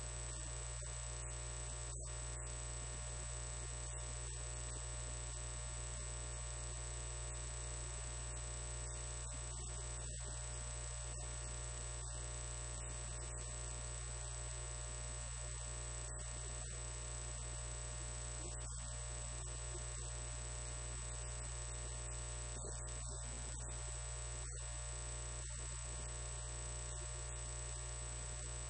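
Steady electrical hum with a thin, high-pitched whine over it, unchanging throughout; no other sound stands out.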